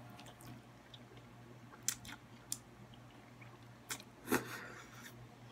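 Close-up mouth sounds of spaghetti being eaten: soft slurping of noodles and chewing, with a few short wet clicks and smacks, the loudest about four seconds in. A faint steady hum sits underneath.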